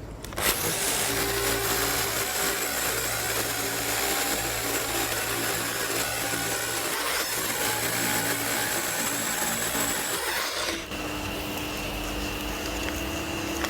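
Rotary hammer drill with an 18 mm bit drilling a hole into concrete. About ten seconds in, the sound drops to a quieter, steadier whine.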